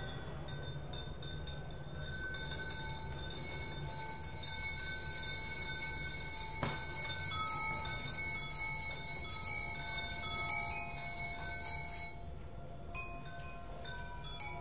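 Ceramic bowls ringing with sustained, overlapping pure tones at several pitches, set sounding by a bow drawn across their rims and by a thin stick, over a low steady hum. There is a sharp click about midway and a few light taps near the end.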